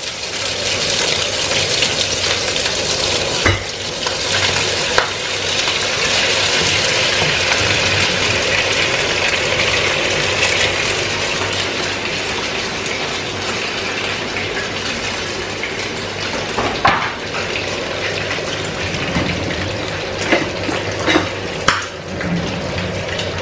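Pieces of kawarma beef sizzling as they fry in oil in a non-stick frying pan, a steady hiss throughout. A few sharp knocks and scrapes of a spatula against the pan and cutting board come through it as more meat is pushed in and stirred.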